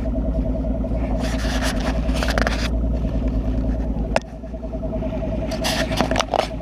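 Bass boat's outboard motor running steadily, overlaid by a few short rubbing and scraping noises of the camera being handled and moved, with a sharp click about four seconds in, after which the low rumble drops.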